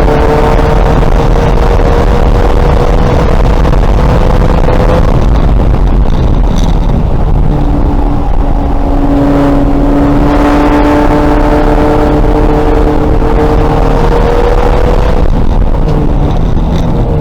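2000 VW Golf race car's engine running hard under acceleration on track, its note climbing slowly, breaking off about halfway through and climbing again, with heavy road and wind noise underneath.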